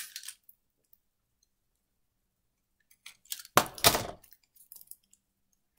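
Plastic shrink wrap on a deck of cards being worked open: a short burst of crackling plastic about three and a half seconds in, with a few small clicks after it.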